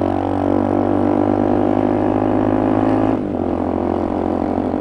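Engine of the vehicle being ridden, running steadily under way, with its note shifting abruptly about three seconds in, like a gear change or a change of throttle.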